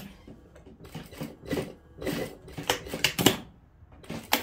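Sewing machine stitching in short, stop-start bursts as a seam is sewn along a trouser waistband.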